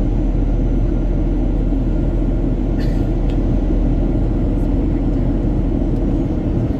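Steady cabin noise inside a Boeing 737-800 in flight: a low engine and airflow drone, heard from a seat near the front of the cabin. A brief click sounds just under three seconds in.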